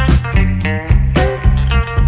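Background music: a plucked guitar part over a heavy bass line and a steady drum beat, with no vocals.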